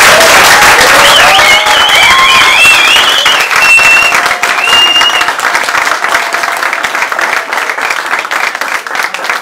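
Audience applauding, loud at first and gradually thinning out, with high wavering cheering calls over the clapping for the first few seconds.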